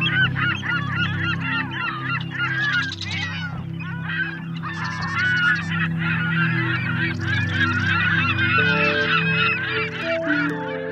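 A flock of geese honking together in a dense, overlapping chorus, over steady low sustained tones. Near the end a melody of stepped notes comes in.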